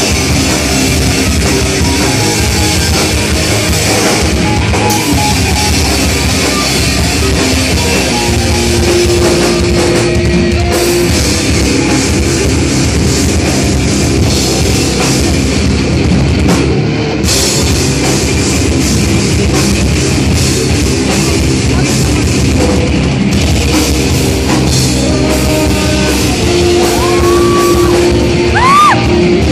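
Live heavy rock band playing loudly: distorted electric guitars, bass and a pounding drum kit with cymbals. Near the end a few high notes slide up and down in pitch over the band.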